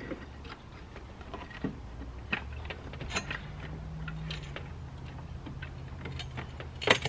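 Hand tools and metal parts clicking and tapping at irregular intervals during work on an ATV's stator housing, with one sharper click near the end. A low steady hum runs underneath.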